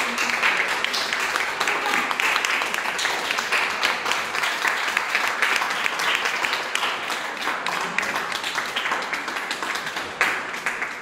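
A small audience applauding, a steady patter of many hands clapping that begins to fade near the end.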